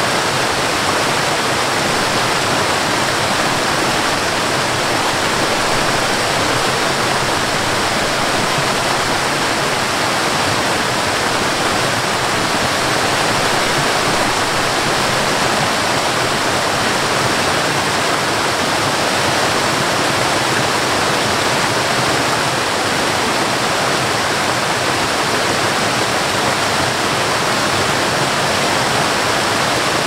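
Waterfall cascading down a rocky, stepped rock face: a steady, unchanging rush of falling and splashing water.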